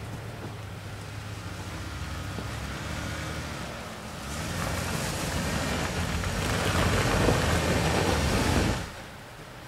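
Jeep Wrangler JK engine running as it crawls up a rutted dirt trail. About four seconds in it is given throttle and a loud rushing noise of tyres working on the dirt builds, then it drops off abruptly near the end.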